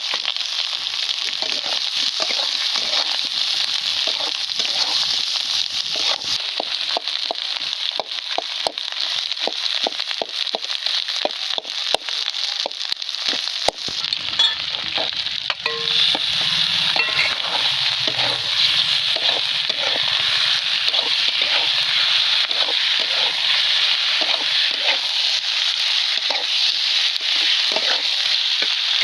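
Food frying in hot oil in a pan: a steady sizzle with many small crackling clicks, getting a little louder about halfway through.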